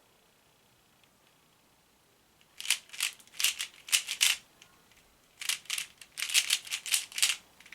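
3x3 Rubik's cube being turned in quick runs of clicking, rattling face turns: two flurries of about two seconds each, with a short pause between them.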